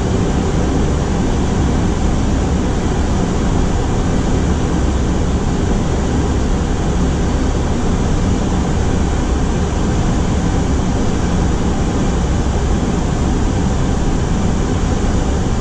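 Steady flight-deck noise of an Airbus A330 on approach, heard inside the cockpit: an even rushing hiss of airflow and air conditioning over a low rumble, unchanging throughout.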